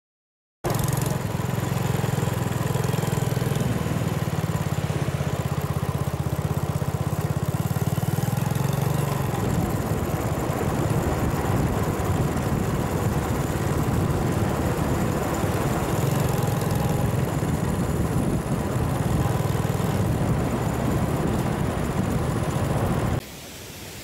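Motor vehicle engine running steadily while on the move. It starts abruptly just after the start and cuts off about a second before the end.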